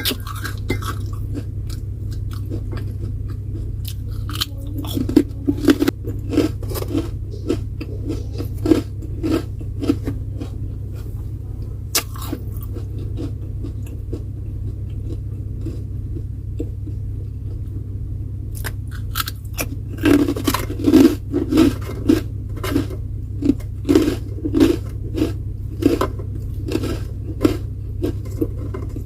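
A person chewing crunchy food close to the microphone, in two runs of quick, rhythmic crunching bites with a quieter pause between, over a steady low hum.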